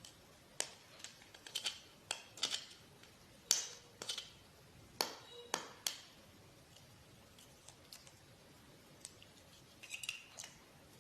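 Plastic packaging of a fishing-line spool crinkling and clicking as it is opened and handled. A run of irregular sharp clicks fills the first six seconds, and a few more come near the end.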